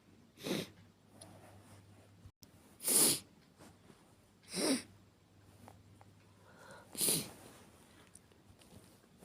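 A woman's acted sneezes, four short sharp ones spaced about two seconds apart, the second the loudest.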